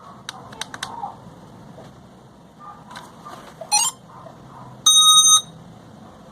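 A few clicks, then a short warbling chirp and a single steady high electronic beep of about half a second, the loudest sound. These are power-on beeps from the SG908 quadcopter's electronics as it is switched on.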